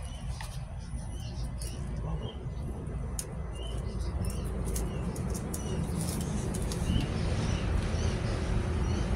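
Small birds chirping repeatedly in the background over a low steady rumble that grows louder in the second half, with scattered light clicks from handling the plastic earbud case and packaging.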